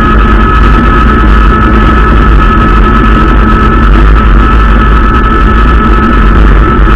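Loud, steady wind rumble and road noise on a camera mounted on a fat-tyre electric bike while riding, with a constant high whine over it.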